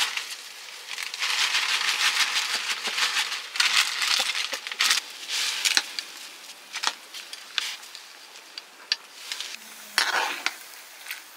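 Crinkling and rustling for a few seconds, then scattered sharp clicks and clinks, with a louder crinkling burst about ten seconds in.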